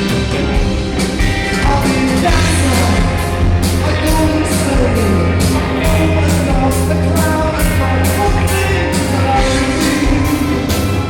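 Live band music: a loud song passage driven by a steady drumbeat and heavy bass.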